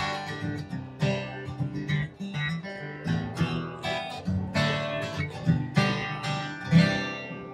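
Tagima CF7000 Café acoustic guitar, with a solid Sitka spruce top and solid rosewood back and sides, played with strummed chords and picked notes that ring out between strokes.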